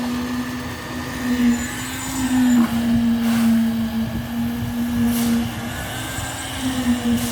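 Machinery running continuously on a concrete-casting site, with a strong, steady hum that wavers slightly in pitch over a rumbling background. A few brief sharp knocks stand out, about two and a half seconds in, near the middle and near the end.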